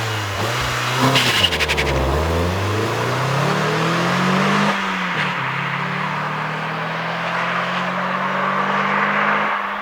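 Renault Twingo RS 1.6 naturally aspirated four-cylinder engine accelerating under load: its pitch dips about a second in, climbs steadily, drops sharply near the middle with a gear change, then climbs again more slowly and falls off near the end.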